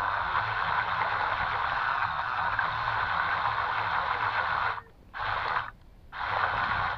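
The radio-controlled toy boat's twin small 130 electric motors driving its propellers, a steady whirring churn of water, which stops twice briefly near the end and starts again.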